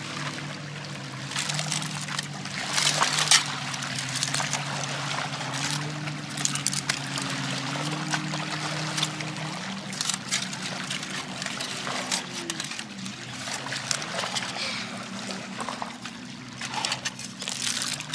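Aluminium foil crinkling and rustling in many short crackles as a foil-and-banana-leaf fish parcel is peeled open, loudest about three seconds in. Under it runs a steady low hum that shifts pitch every few seconds.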